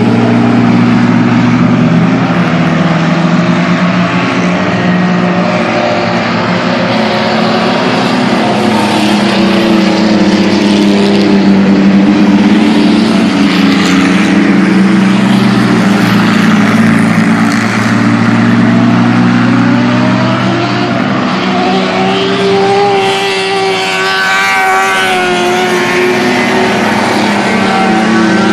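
Several pickup-truck race engines running hard on a dirt oval, continuous and loud. Their pitch rises and falls as the trucks accelerate down the straights and lift for the turns, with one engine revving up clearly near the end.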